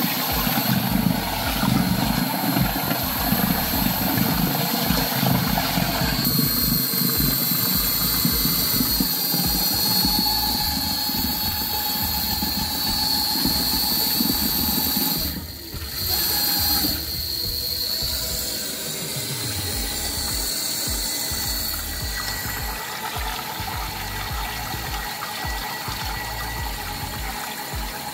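Air-driven stirrer on a stainless steel mixing tank running, a steady high tone and hiss over water churning and swirling in the tank. The sound drops out briefly about halfway, then carries on.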